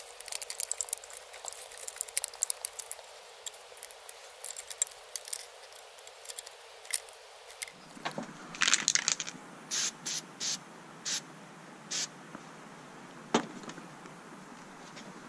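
Scattered light clicks and clatter of hand work on an engine, small metal and plastic parts and connectors being handled, over a steady faint hiss. About nine seconds in comes a run of five or six sharper clicks, and one more a little later.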